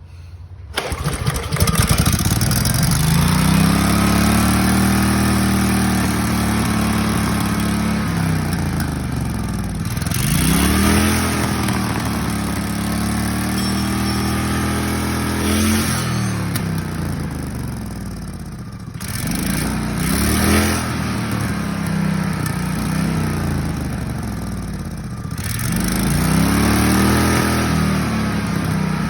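Hand-pulled engine on a Comet 40 series torque converter setup catches about a second in and keeps running. Its speed drops and rises again several times.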